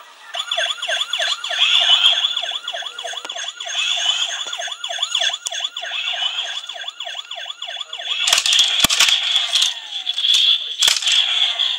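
Tomy Tomica toy police car's electronic sound chip playing a fast warbling siren through its small speaker, about three wails a second, over a thin steady high tone. Towards the end, harsh crackling bursts cut in over the siren.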